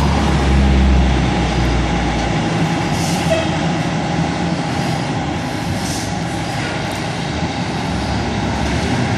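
Fire trucks running at the station, a steady engine rumble with two short hisses of air about three and six seconds in. A deeper low rumble fades out about two seconds in.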